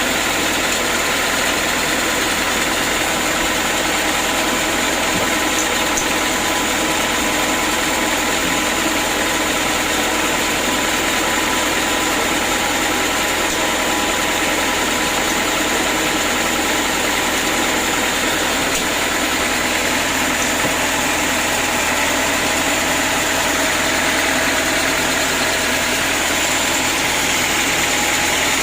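Sawmill machinery running steadily: a continuous loud mechanical hum with several steady whining tones that do not change.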